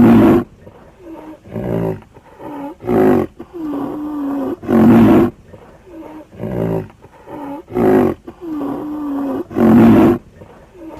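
Rhinoceros calling: a run of loud calls every one to two seconds, with lower, drawn-out pitched calls between them. The sequence repeats after about five seconds.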